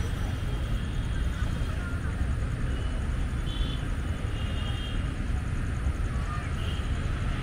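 Outdoor city street ambience: a steady low rumble of distant traffic, with a few faint short high-pitched tones about halfway through and again near the end.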